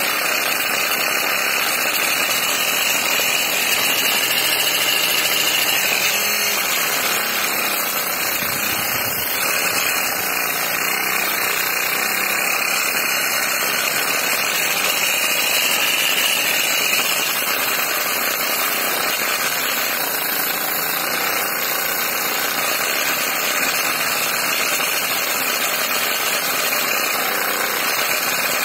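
Small electric motor of a miniature model paddy thresher running steadily, spinning the threshing drum through rubber-band belts, with rice stalks held against the spinning drum.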